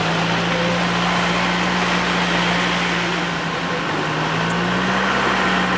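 Engine and road noise inside a moving vehicle's cabin: a steady low drone over an even rush, its pitch rising slightly about five seconds in.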